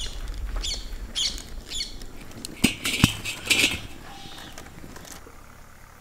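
A large iron wok being handled and set down on the stones of a wood fire: a few short scraping rustles and two sharp knocks about half a second apart, near the middle.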